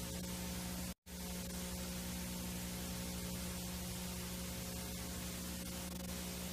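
VHS tape playback noise: steady hiss over a low electrical hum, cutting out completely for a split second about a second in.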